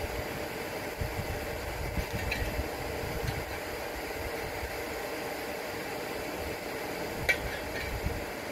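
Blow dryer running steadily as a blower, forcing air through a steel pipe into burning charcoal to drive up the forge's heat: a steady whirring hum over an uneven low rumble. A single sharp crack comes about seven seconds in.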